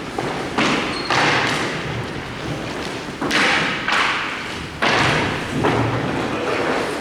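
A series of hard thuds from hockey shots striking their target, about five of them, each ringing on for half a second or more.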